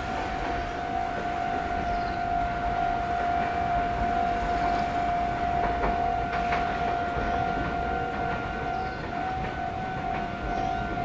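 Japanese railway level-crossing alarm ringing on without a break at one steady pitch, warning that the crossing is closed for trains, over a low rumble from the railway.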